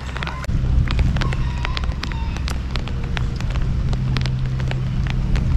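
Pouring rain, with many sharp drops ticking close by over a steady hiss, and a steady low hum underneath that swells about half a second in.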